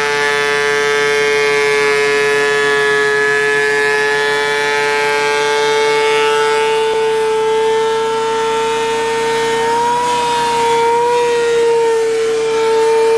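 Thickness planer running with a loud, steady high whine, planing a 2x6. The pitch dips briefly twice near the end.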